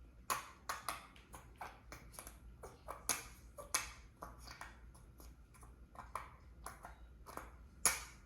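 Irregular sharp clicks and squelches, about two or three a second, from a plastic squeeze bottle being forced to squirt into a slime mixture. The bottle is hard to squeeze. One louder click comes near the end.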